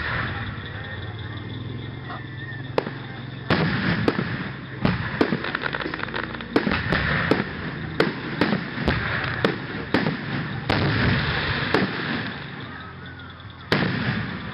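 Aerial firework shells bursting overhead in a run of sharp bangs. They come sparse at first, then crowd together at several a second from a few seconds in, and thin out near the end.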